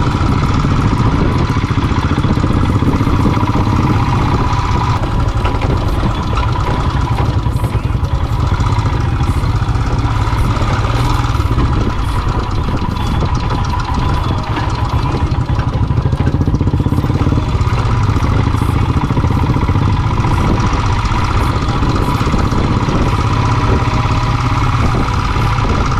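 Royal Enfield single-cylinder motorcycle engine running steadily, with no marked revving or stopping.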